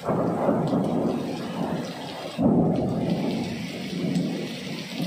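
Heavy rain from a cyclonic storm pouring down, with a loud low rumble that sets in suddenly at the start and surges again about two and a half seconds in.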